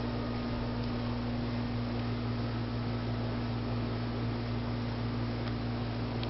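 Hampton Bay Veranda 2 outdoor ceiling fan running on low speed: a steady motor hum over an even hiss.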